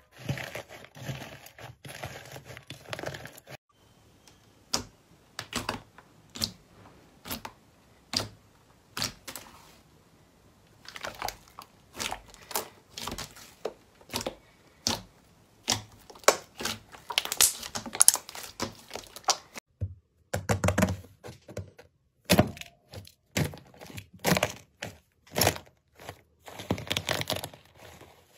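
Hands crushing and squeezing slime: a dense crackle as a dried, brittle slime crust breaks up at the start, then a long run of separate sharp clicks and pops as soft, glossy slime is pressed, growing busier in the second half.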